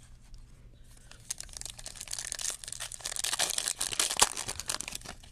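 Foil wrapper of a 2020 Topps Gold Label baseball card pack being torn open and crinkled by hand. It is a dense crackling that starts about a second in and is louder in the second half.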